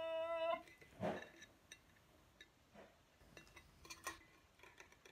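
A girl's voice holding one long sung note into the mouth of a metal Hydro Flask water bottle, cutting off about half a second in. Then a breath, and faint clicks and taps as the bottle is handled.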